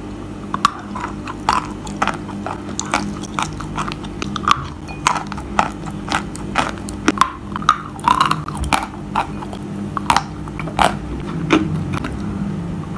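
Close-up crunching as a person bites into and chews dry pressed chalk coated in brown clay paste: a run of sharp, crisp crunches, irregular and about two a second.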